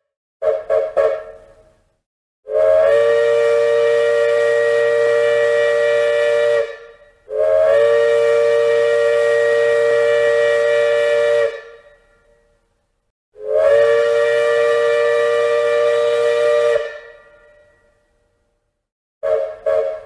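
Steam train chime whistle sounding several close notes together: a few quick short toots, then three long blasts of about four seconds each, each trailing off in an echo, then a run of rapid short toots near the end.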